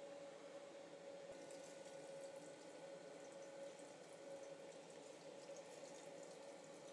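Faint sizzling and crackling of hot oil as breadcrumb-coated chicken skewers deep-fry, over a steady low hum; the crackle picks up about a second in.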